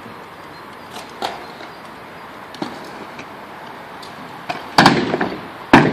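Skateboard or scooter hits on a concrete skatepark: a few light clacks, then two loud impacts near the end with smaller knocks around them, over a steady outdoor background hiss.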